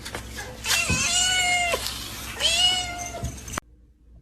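A cat meowing twice, two drawn-out meows of about a second each, each falling in pitch at the end. The sound then cuts off abruptly near the end.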